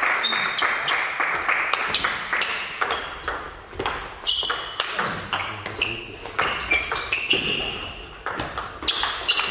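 A table tennis rally: the plastic ball clicking sharply off the players' rubber bats and bouncing on the table, hit after hit in quick alternation.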